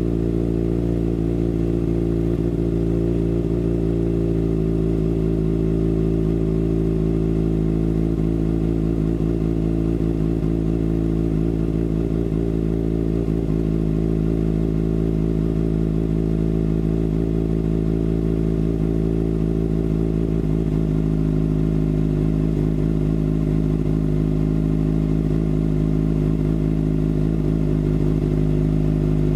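2013 Kawasaki ZX-6R 636's inline-four engine idling steadily through a Racefit carbon slip-on exhaust.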